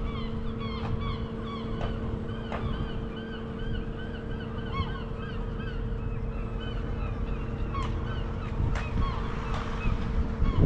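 Whitby swing bridge's drive motors humming steadily as the bridge leaf swings open, with many short bird calls over the hum.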